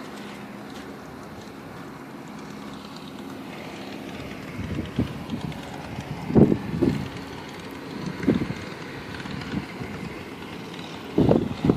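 Snowstorm wind with a steady low rumble underneath. From a little under halfway in, irregular gusts buffet the microphone in low thuds.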